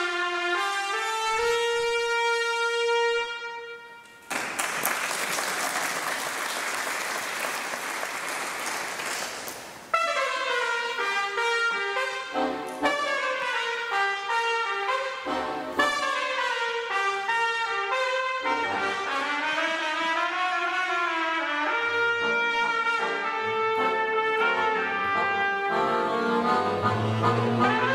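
Jazz trumpet and accordion duo playing. A long held trumpet note opens, then about six seconds of even noise, and from about ten seconds in a moving trumpet melody over accordion chords and bass.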